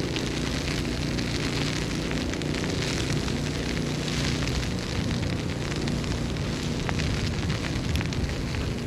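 Snowstorm street ambience: a steady rush of noise with a low hum underneath and fine crackling ticks throughout.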